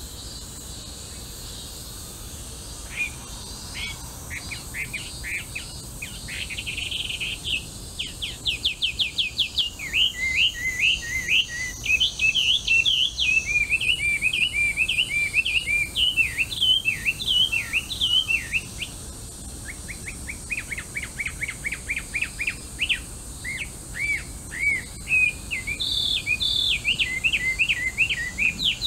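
Melodious laughingthrush (hwamei) singing: a long song of clear whistled phrases, mixing fast runs of repeated notes with varied swooping notes. It breaks off briefly near the start and again about two-thirds of the way through.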